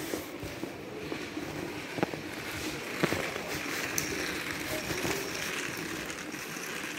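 Background noise of a large store: an indistinct, steady murmur, with a few sharp clicks about two, three and four seconds in.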